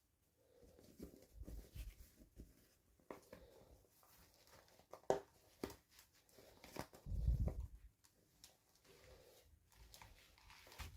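Hands opening and handling toy packaging: irregular tearing, rustling and crinkling with sharp clicks, and a low bump about seven seconds in.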